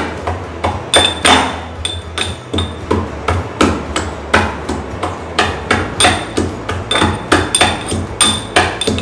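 Fresh ginger being pounded to crush it: a steady run of blows, about three a second, each with a brief ring.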